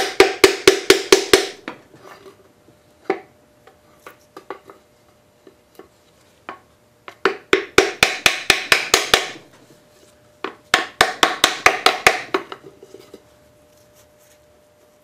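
Quick tapping in three bursts of about ten strikes each, roughly five a second, with a few single knocks between them, each strike ringing briefly. This is the stuck piston of a 1934 Briggs & Stratton Model Y engine being tapped out of its cylinder through a small block of wood.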